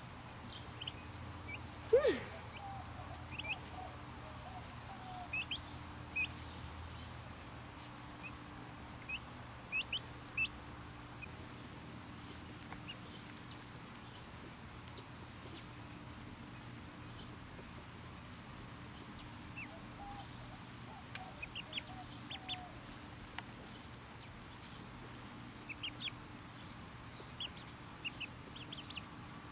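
Ducklings peeping: short, high cheeps that come in scattered little clusters, with one louder, lower call that falls in pitch about two seconds in.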